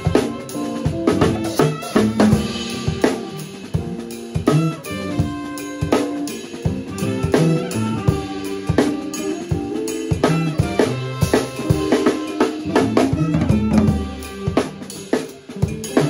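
Live funk band playing an improvised groove. The drum kit is up front, with busy kick, snare and rimshot hits, over a moving bass line and held notes from other instruments.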